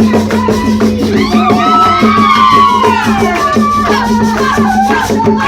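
A tuna ensemble playing a song, with pitched melody lines over a steady, even rattling percussion rhythm.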